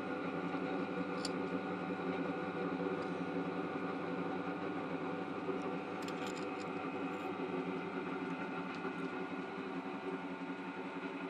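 Archdale vertical milling machine running steadily, a constant motor-and-gearbox hum, with a few faint ticks about a second in and again around six seconds.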